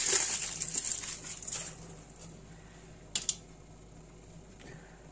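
Plastic cling film crinkling as it is wrapped around a hollowed, stuffed potato. It fades out after about a second and a half, followed by two quick light knocks about three seconds in.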